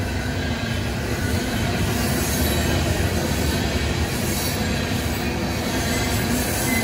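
Freight train of tank cars rolling past at close range: a steady heavy rumble of wheels on rail, with a thin high wheel squeal mid-way through.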